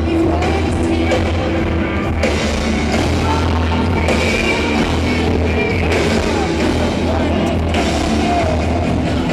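Loud rock music with singing.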